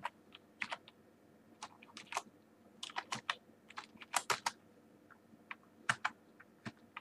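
Typing on a computer keyboard: separate keystrokes that come in irregular small clusters, with short pauses between them.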